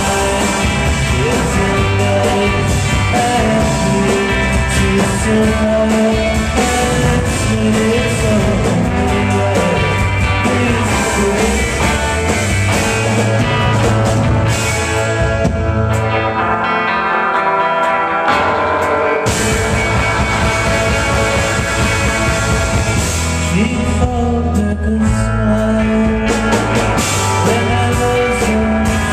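Psychedelic rock band playing live, with jangly electric guitars, drums and a male lead vocal. About halfway the drums and bass drop out for a few seconds, leaving the guitars ringing, then the full band comes back in.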